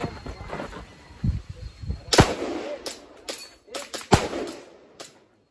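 Gunshots on a shooting range: two loud shots about two seconds apart, each with a short ringing tail, and several lighter sharp cracks around and after them.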